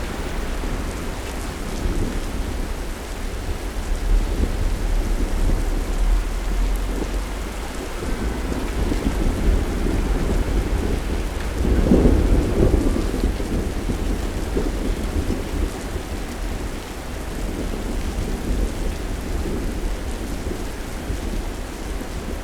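Thunderstorm: rain falling steadily, with low rolling thunder under it that swells into a louder rumble about halfway through.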